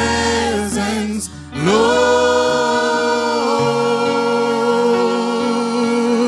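Gospel worship team singing, lead and backing voices together: a short phrase, a brief break about a second and a half in, then one long held note.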